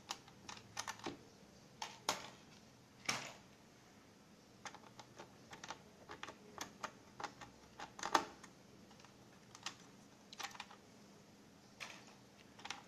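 Irregular faint clicks and taps of a small screwdriver and hard plastic as screws are taken out of a keyboard's controller circuit board, with a few louder knocks scattered among them.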